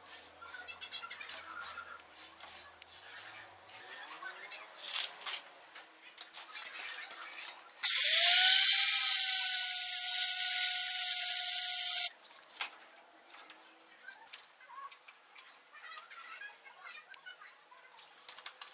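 Electric angle grinder cutting through PVC pipe: for about four seconds near the middle a loud, hissing cut with a motor whine that rises as it spins up, then stops abruptly. Faint clicks and taps before and after.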